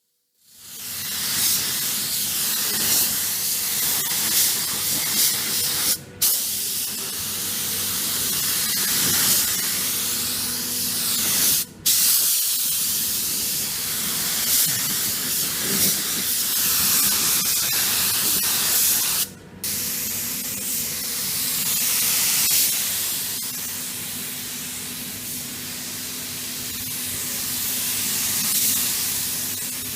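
Compressed-air paint spray gun hissing steadily as it sprays polyester spray-filler primer through a 2.5 mm tip, with the trigger let go briefly three times.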